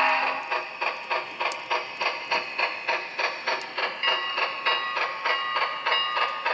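Sound decoder of an HO-scale Union Pacific 3900-class Challenger steam locomotive model playing steam exhaust chuffs at about four a second. A whistle blast ends just after the start, and a fainter steady whistle-like tone joins the chuffs about four seconds in.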